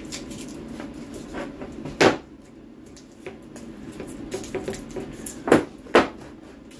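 Handling noise: a few sharp knocks and small clicks as an aluminium stair nosing and a strip of LVT are set down and shifted on the floor. The loudest knock comes about two seconds in, and two more follow close together near the end.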